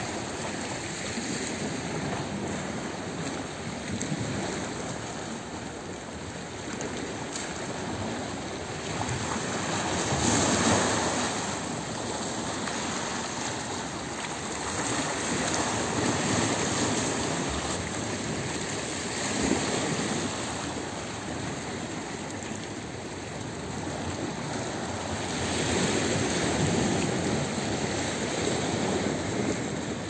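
Small waves of a calm sea lapping and washing over shoreline rocks, a steady wash that swells louder every few seconds.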